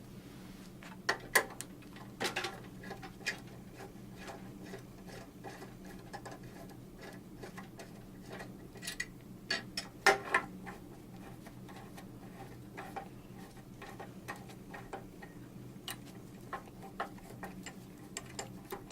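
Ratcheting torque wrench clicking in short irregular runs as the bolts holding a primary adapter are loosened, with sharp metal clicks over a steady low hum.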